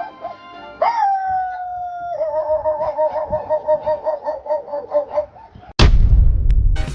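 Rooster crowing: one long, drawn-out crow that starts suddenly, slides slightly down in pitch, then wavers for several seconds. About six seconds in, a much louder sudden noisy burst cuts in.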